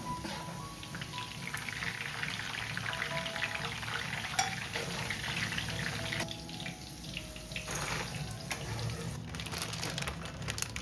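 A crackling hiss full of small ticks, like food sizzling, that eases off just past the middle, over soft background music.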